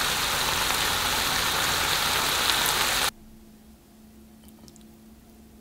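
Sliced pork and onions sizzling in a frying pan, an even crackling hiss that cuts off abruptly about three seconds in. After it, a quiet background with a few faint clicks.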